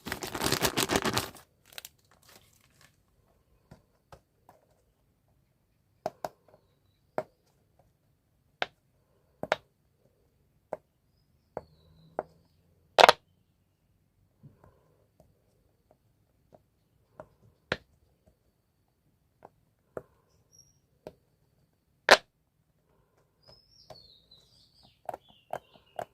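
Candy packaging torn and crinkled for about a second and a half, then scattered sharp single clicks and taps, roughly one a second, a few of them much louder.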